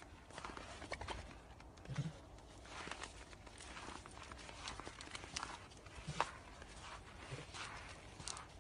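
Footsteps crunching on packed snow, an irregular crackle of steps with a few dull thumps.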